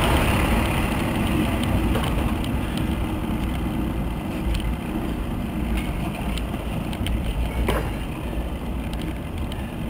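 Wind rushing over the microphone of a bicycle-mounted camera during a fast ride, a steady low rumbling noise that slowly gets quieter, with a few faint clicks.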